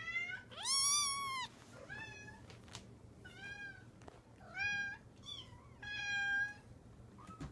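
Kittens meowing repeatedly: about seven high-pitched meows, each rising then falling in pitch. The first, about a second in, is the loudest; the rest are weaker and spaced a second or so apart.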